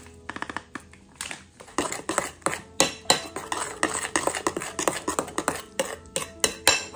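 Metal spoon stirring in a glass bowl, clinking and scraping irregularly against the glass as cereal powder is mixed into mashed fruit. The clinks grow louder and quicker about two seconds in.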